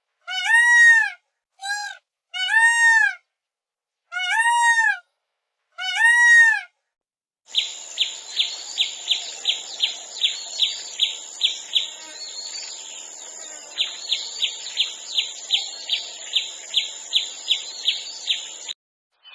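Bird calls. First comes a series of six drawn-out calls, each rising and then falling in pitch. After a cut comes a quick run of short chirps, about three a second, over a steady high-pitched tone; the chirps pause briefly near the middle and stop abruptly near the end.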